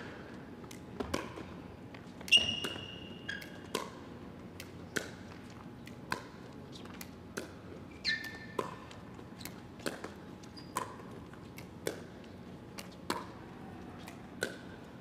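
Pickleball paddles striking a hard plastic Franklin X-26 ball in a long rally: a sharp pop about every half second to a second, some with a brief ringing after them.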